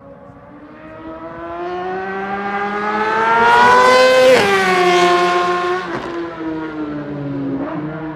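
Litre-class inline-four sport bike accelerating hard down a race track's straight and passing close by: the engine note climbs and grows louder, drops sharply in pitch as it goes past about four seconds in, then fades away, with a brief break in the note around six seconds as it shifts up.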